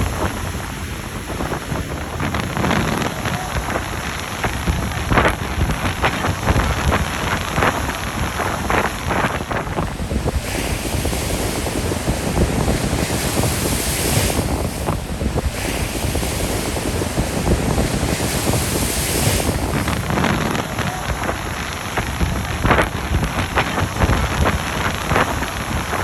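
Strong wind buffeting the microphone in heavy low rumbling gusts, over the steady wash of waves breaking on the shore.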